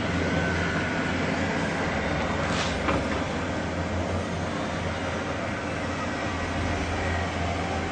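A steady low, droning rumble under a layer of hiss, with a brief swishing sound about two and a half seconds in, of the kind circulated as the unexplained 'strange sounds' heard in the sky in 2012.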